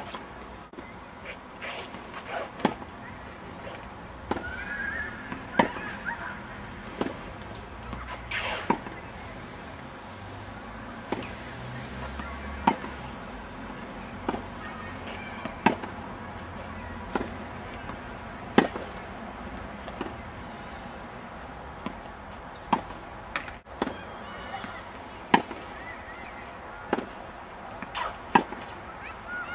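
Tennis balls struck by rackets in a practice rally: sharp pocks at irregular spacing, mostly one to two seconds apart.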